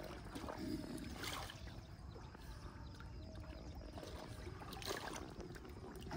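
Faint sloshing of shallow pond water as people wade through it dragging a fishing net, with soft splashes about a second in and again near five seconds.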